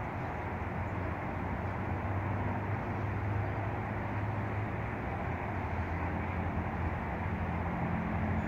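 Steady outdoor background rumble: a low hum under an even hiss, with no goose calls.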